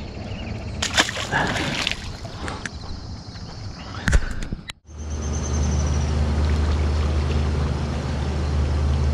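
Handling noise with a few sharp knocks, then, after a brief drop-out a little before halfway, a steady low engine hum that runs on.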